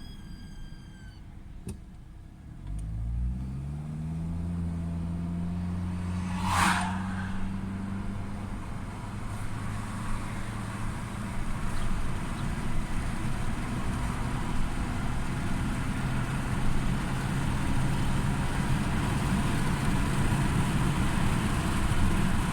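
Mercedes-Benz A 150 (W169) 1.5-litre four-cylinder petrol engine: a high, thin squeak that dies away about a second in, then the engine starts about two and a half seconds in, its speed rising and settling into a steady idle. A short sharp noise a few seconds after the start, then steady running.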